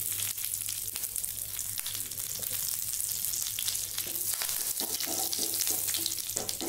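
Curry leaves sizzling and crackling in hot coconut oil in a non-stick frying pan, stirred with a wooden spatula partway through.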